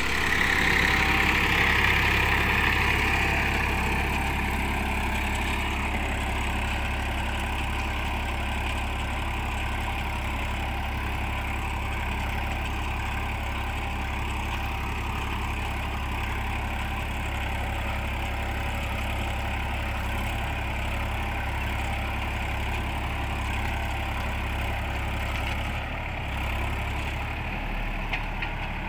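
Tractor's diesel engine running steadily under load while pulling a two-disc plough through dry soil, louder for the first few seconds.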